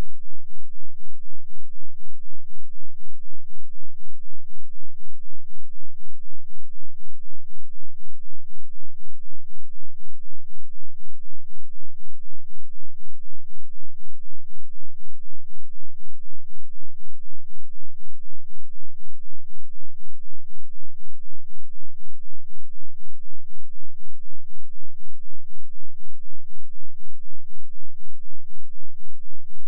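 2 Hz sine-wave bass test tone played continuously: a very deep, mostly inaudible pulse whose level swells and dips evenly about four times a second, with a faint low rumble above it.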